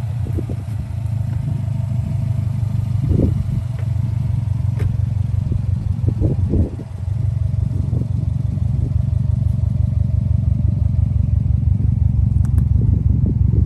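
Subaru WRX's turbocharged flat-four engine idling steadily just after being started, with a few brief sharper sounds over the drone.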